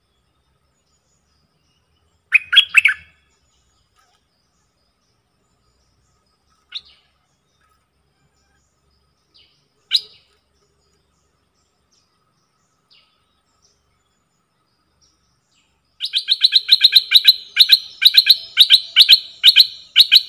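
Stripe-throated bulbul calling: a short burst of chattering notes, then two single notes, then a fast run of repeated notes, about five a second, from about three-quarters of the way through to the end.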